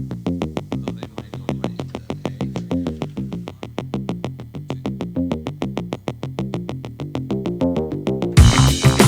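Background music: a fast run of repeated synthesizer notes, with a louder full band with heavy bass and drums coming in near the end.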